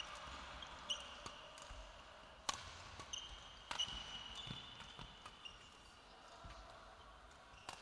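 Badminton doubles rally: sharp pops of rackets striking the shuttlecock, a second or more apart, with sports shoes squeaking on the court floor.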